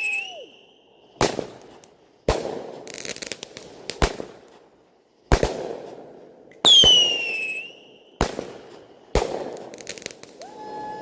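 A consumer fireworks finale firing shot after shot: seven sharp bangs about a second or a second and a half apart, several followed by crackling. One shot, about two-thirds of the way in, carries a high whistle that falls in pitch.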